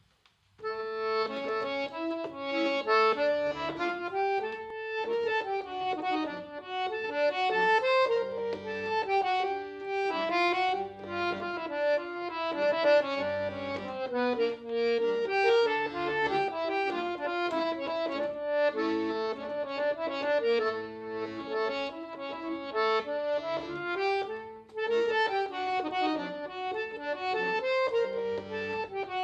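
Scandalli piano accordion playing a politiko hasapiko, a Greek dance tune: a right-hand melody on the keyboard over a steady pulse of left-hand bass notes. The playing starts about half a second in.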